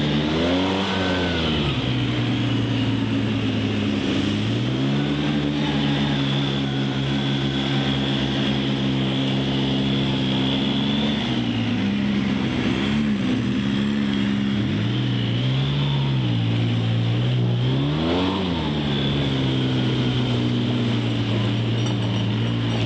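Side-by-side UTV engine running at a steady drone, revving up and easing back off about five times as it drives through a creek.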